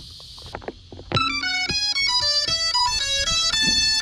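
Music: a short, rapid melody of bright, plucked-sounding notes that starts about a second in, with a new note roughly every fifth of a second.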